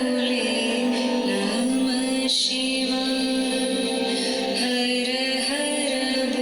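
A woman singing a slow melody with long held notes, in the manner of a chant.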